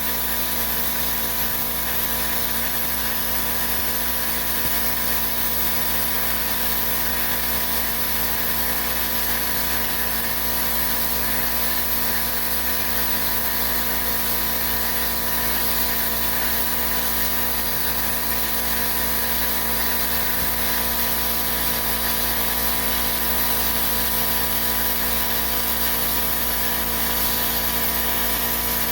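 A machine running steadily, with a constant hiss and several held tones that do not change.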